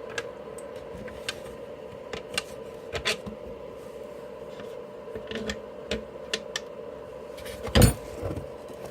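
Plastic clicks and knocks as the electric blower's plastic cover is handled and fitted back into place, with one louder knock near the end. A steady hum runs underneath.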